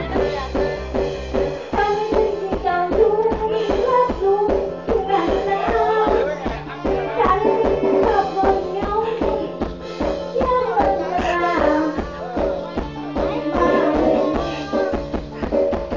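A song with a steady drum beat and a singing voice.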